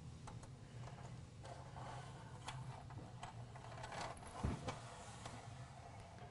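Faint taps and clicks of a desk lifting column being slid onto screws in the laminate end panel through its T-slot, with one soft knock about four and a half seconds in.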